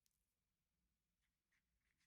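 Near silence: room tone with a few very faint short scrapes or taps.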